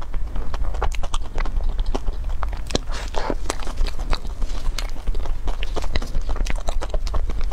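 Close-miked mouth sounds of eating a soft chocolate-coated dessert: chewing with many quick wet clicks and lip smacks, over a steady low hum.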